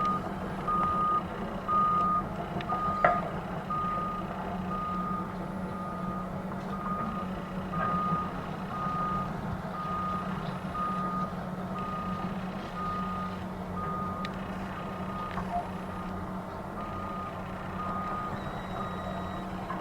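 Heavy equipment's reverse alarm beeping about once a second over a steady low drone of machinery, with a few sharp knocks, the loudest about three seconds in.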